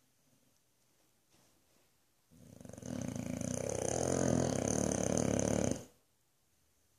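Boxer dog snoring: after a quiet pause, one long, loud snore of about three and a half seconds builds up, then stops abruptly.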